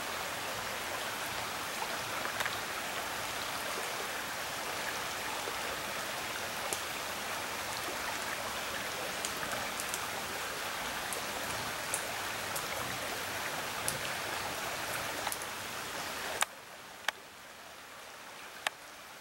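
Steady hiss of water, with scattered sharp ticks like drips. Near the end the hiss drops away suddenly, leaving a few louder isolated ticks.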